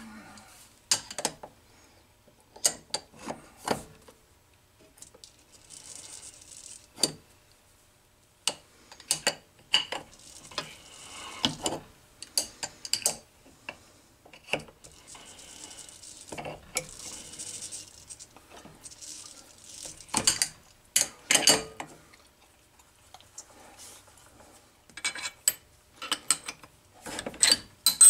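Hand threading a brass fitting with a pipe-thread die in a die stock: irregular metallic clicks and clinks from the die stock, chuck and wrench, with short spells of scraping as the die cuts. The loudest clank comes near the end.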